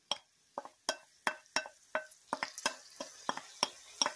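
Spoon clicking against a metal pan in a steady rhythm, about three strikes a second, as rice and onions are stirred while toasting in oil; a faint sizzle comes up about two seconds in.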